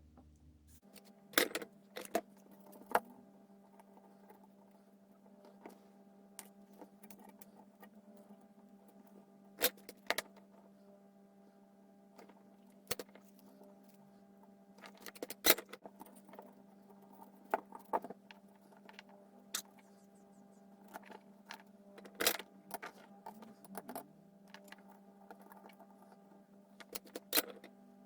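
Scattered sharp clicks and clinks of small hard objects being handled, over a steady low electrical hum that starts about a second in.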